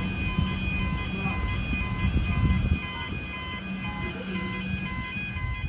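Railway level crossing bells ringing in a steady, evenly repeating pattern, over the low rumble of a Comeng electric train running away down the line; the rumble drops off a little before the halfway point.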